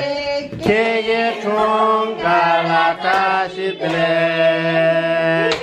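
Several voices singing together in slow, drawn-out, chant-like notes, ending on a long held note.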